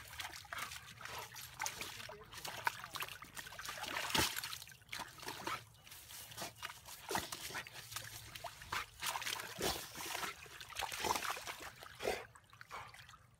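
A dog rolling and wallowing in a muddy puddle: irregular wet sloshing and squelching of mud and water.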